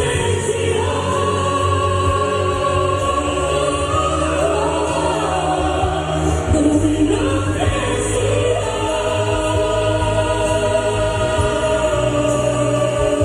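Pop ballad performed live: a female singer holding long sustained notes over backing music with choir-like backing vocals.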